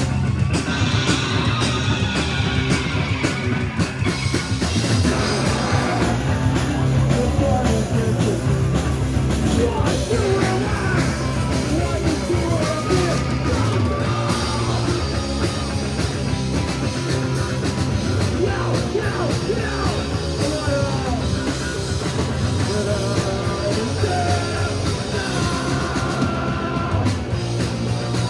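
Live rock band playing loud and steady, with drum kit, bass and electric guitar.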